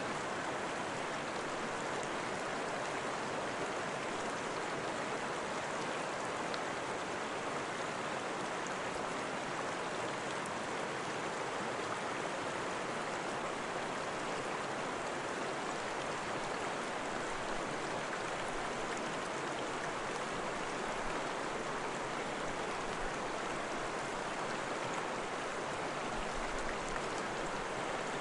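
Steady, unbroken rushing water noise, like a stream or light rain, at an even level throughout.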